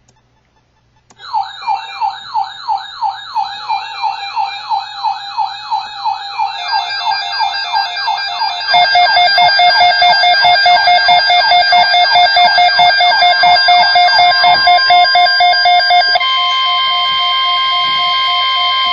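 Electronic alert siren from an Emergency Alert System broadcast for a tornado watch. It starts about a second in with a fast up-and-down wail of about three sweeps a second, turns into a pulsing tone partway through, and settles into a steady alert tone near the end.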